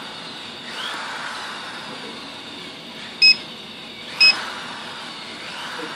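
Two short electronic beeps about a second apart, from a Hoya ConBio Revlite touch panel display as its on-screen buttons are pressed, over a steady background hiss.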